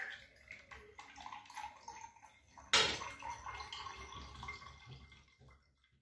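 Water running from a kitchen tap into a glass, with one sharp clink about halfway through; the running sound dies away just before the end.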